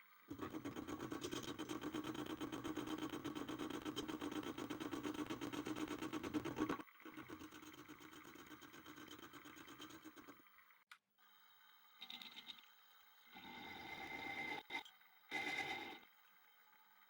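Small workshop machine tool running steadily under load for several seconds, then quieter, followed by three short bursts of a motor with a steady whine.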